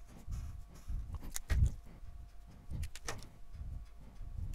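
A few light clicks and taps with soft low thumps, from a pen or stylus writing on a drawing surface.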